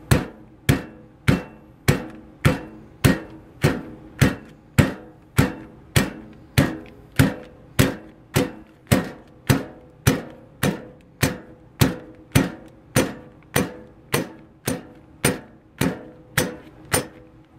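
Steady, even pounding: the flat bottom of a metal espresso maker striking cube steak through a plastic freezer bag on a countertop, a little under two blows a second, to thin and tenderize the meat.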